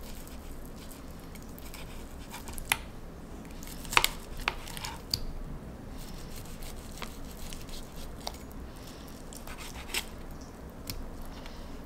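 Cutlery on a plate while steak is being cut and eaten: a handful of sharp clicks and taps, the loudest about four seconds in, over a low steady room hum.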